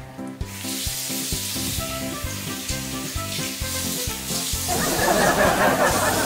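Water running from a tap into a bathroom sink, with louder splashing from about five seconds in as hands work in the basin. Background music with short melodic notes plays underneath.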